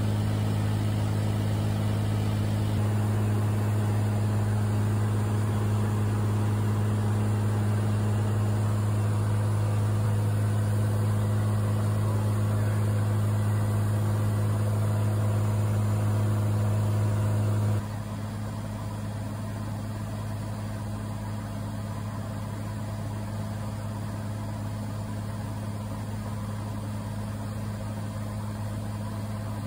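Cessna 182's piston engine and propeller droning steadily in cruise, heard inside the cabin as a deep, even hum. About two-thirds of the way through it drops suddenly to a lower level with no change in pitch.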